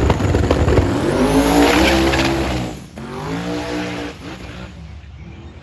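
Drag race car accelerating hard. The engine's pitch climbs steadily, breaks off about three seconds in as it changes gear, climbs again, and then the sound fades.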